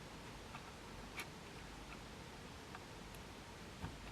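Faint, scattered small clicks and taps, about six of them, as cable plugs are pushed back onto the connectors inside a synthesizer module.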